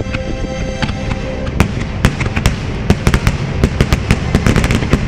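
Fireworks display: a rapid, dense string of bangs and crackles that starts about a second and a half in, over steady background show music.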